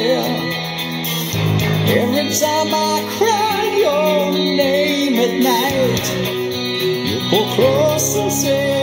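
A song with a singer over guitar and bass, played loud through a homemade Bluetooth speaker built into a .50 cal ammo can, fitted with two Kicker marine speakers.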